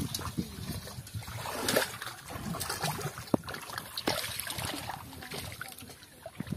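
Hands and legs sloshing and splashing in shallow muddy water while groping for catfish, in irregular swishes with scattered small clicks and one sharp click a little over three seconds in.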